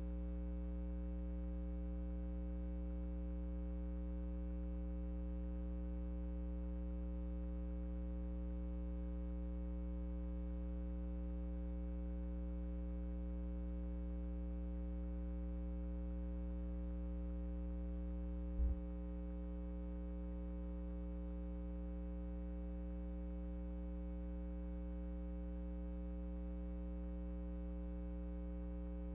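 Steady electrical mains hum, a low drone with a row of higher overtones, with one short low thump about two-thirds of the way through.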